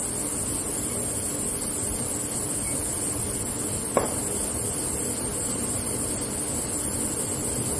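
Steady, even hiss with no engine or voice in it, and one short, sharp chirp-like click about four seconds in.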